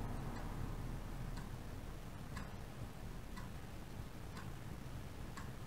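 A clock ticking faintly and evenly, about once a second, over quiet room tone.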